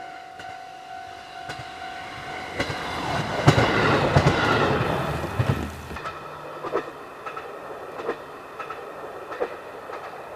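KiHa 54 single-car diesel railcar passing through a station at speed. A held horn note ends about two seconds in, then the rush of the wheels is loudest around four seconds in. After that the engine's low drone and the clack of the wheels over rail joints, about two a second, fade as it pulls away.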